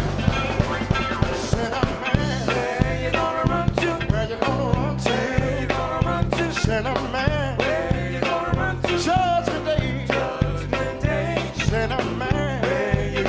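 Live gospel-jazz band playing an upbeat number: drum kit keeping a steady beat, bass guitar coming in about two seconds in, and a wavering lead melody over the top.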